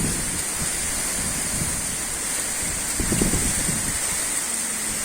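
Strong wind rushing with a steady hiss, and a gust buffeting the microphone about three seconds in.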